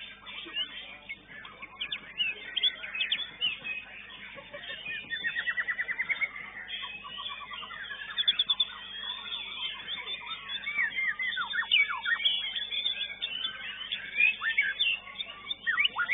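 Songbirds singing, led by a caged white-rumped shama (murai batu): rapid trills of quickly repeated notes and quick falling whistled sweeps, with several birds singing at once.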